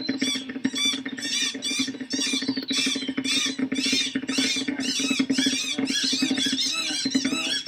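Animated cartoon birds chattering in quick, squeaky, high-pitched calls, about three a second, over a steady low hum.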